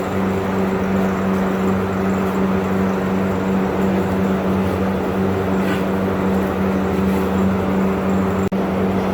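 Steady low mechanical drone of a running motor, with a constant hum, cutting out for an instant near the end.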